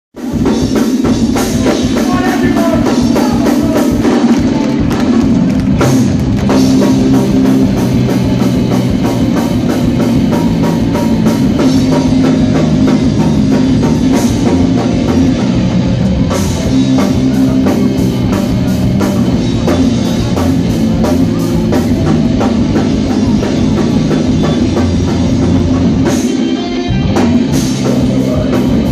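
Live rock band playing loud, with a busy drum kit and cymbal crashes under electric guitar and bass guitar. Near the end the low end briefly drops out, then the full band comes back in.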